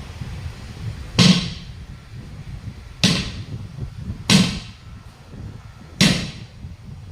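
Four heavy hammer blows, spaced one to two seconds apart, each with a brief ring, over a steady low rumble.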